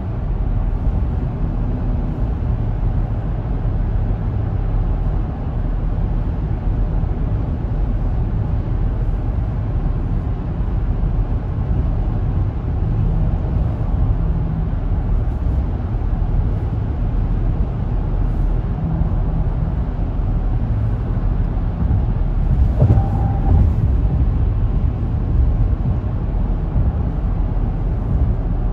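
Steady low road and engine rumble inside a car cruising at highway speed, tyres droning on the pavement. About two-thirds of the way in, a short knock with a brief higher tone cuts through.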